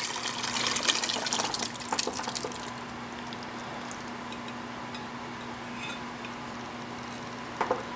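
Chicken pieces and their juices pouring from a bowl into a pot of tomato-onion puree: wet plops and splashes for the first couple of seconds, then quieter. A short knock near the end.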